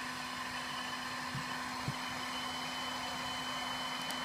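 Heat gun running continuously overhead: a steady blowing whir of its fan motor and airflow, with a constant low hum.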